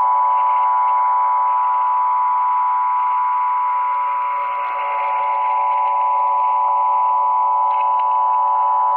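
A steady whistle of about 1 kHz over a hiss from the shortwave transceiver's speaker: an interfering carrier sitting on the frequency and covering the station being received. It dips slightly about halfway through.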